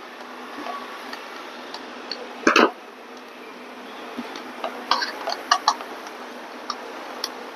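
Small clicks and ticks of a screwdriver working the screws of a plastic mini dome CCTV camera housing, several coming close together later on, with one louder short noise about two and a half seconds in.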